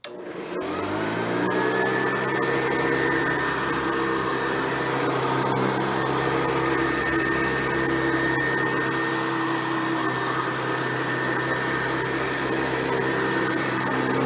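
Hoover Convertible U4349 upright vacuum cleaner, with a 4.8-amp motor and 11-blade fan, switched on with a click. Its motor whines up to speed over about two seconds, then runs steadily.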